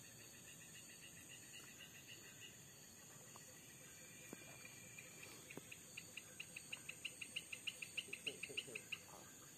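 Faint tropical forest ambience: a steady high insect hum, with a rapid train of short chirping calls, about four a second, that starts again and grows louder over the second half.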